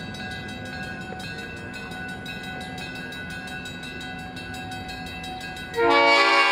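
Train running with a steady low rumble and a few faint steady tones above it. Near the end a much louder pitched sound with several changing notes cuts in abruptly.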